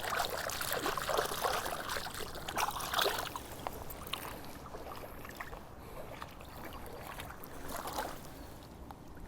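Shallow river water running and splashing, with a cluster of irregular splashes in the first few seconds and another brief splash around eight seconds in.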